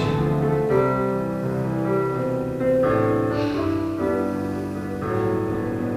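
Soft keyboard music: slow, held chords that change every second or two.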